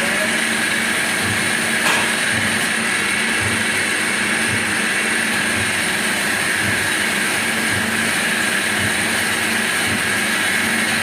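CNC machine running steadily, a continuous mechanical whir with a steady high hum, and one short click about two seconds in.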